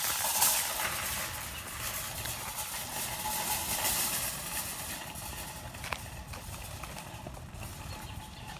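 Metal shopping cart rolling down a cracked asphalt hill, its wheels and wire basket rattling and clattering steadily. The noise slowly fades toward the end, with one sharp click about six seconds in.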